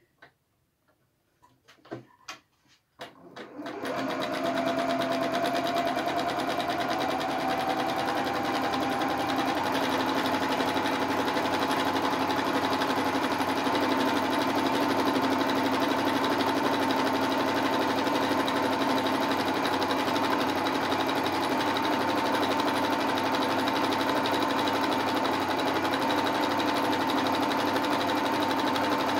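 Janome sewing machine free-motion stitching over handwritten lettering. After a few faint clicks, the machine starts about three and a half seconds in, speeds up slightly over the next few seconds, then runs fast and steady with rapid needle stitching.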